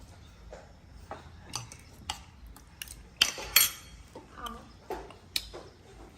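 Light clinks and clatter of utensils and dishes being handled: about a dozen scattered taps, two of them louder a little past the middle.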